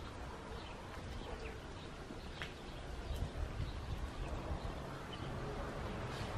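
Faint outdoor background noise: a steady low rumble with scattered short, high chirps and an occasional faint click.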